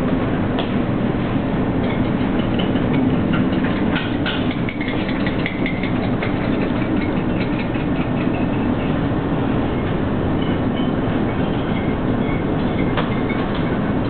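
Steady, loud low drone of a ship's engines and machinery heard inside the wheelhouse, with a few faint ticks and knocks over it.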